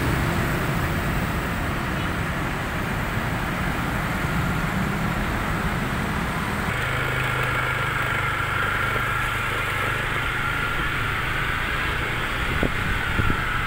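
Street traffic: motor scooters, motorcycles and cars passing with their engines running, giving a steady hum of traffic. About halfway through the sound changes, and a steady higher hum comes in.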